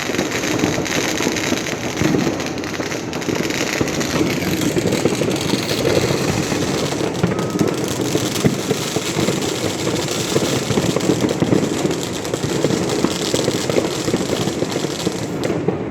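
Fireworks going off continuously, a dense crackle over a steady rumble with no breaks.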